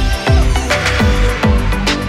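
Background electronic dance music with a steady beat and deep bass notes that slide down in pitch about twice a second.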